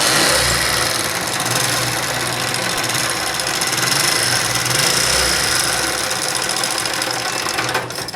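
Honda CD70's 70cc single-cylinder four-stroke engine running steadily with a fast, busy mechanical ticking over it, then cut off near the end. The ticking is the engine-noise fault being demonstrated, put down to timing chain slack and the oil pump sprocket.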